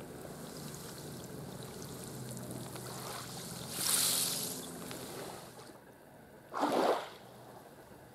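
Gentle water washing in the shallows at a sandy beach, with two louder surges about four and seven seconds in. A faint steady low hum runs under it and fades out around five seconds.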